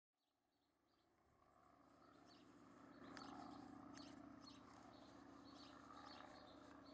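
Garden ambience fading in: scattered bird chirps over a steady low drone, faint throughout.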